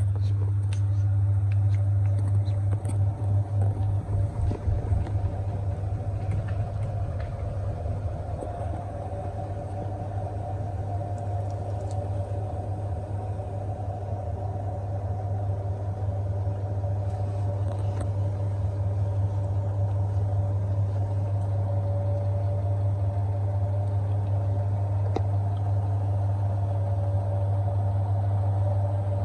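Washing machine running: a steady low hum with a motor whine above it, and an uneven fluttering rumble a few seconds in that settles back to a steady drone.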